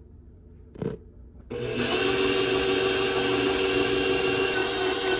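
A short knock, then about a second and a half in a stand mixer switches on and runs at a steady speed, its flat beater turning through flour and creamed butter and sugar in a metal bowl.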